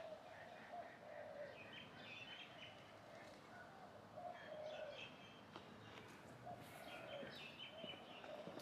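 Faint birds calling: clusters of short high chirps every second or two, over a lower call that repeats in short phrases.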